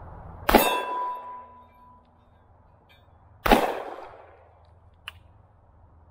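Two shots from a Taurus Judge Public Defender Poly revolver firing .410 shotgun shells, about three seconds apart. The first shot is followed by a brief metallic ring, as from a steel plate target being hit, and a faint click comes between the shots.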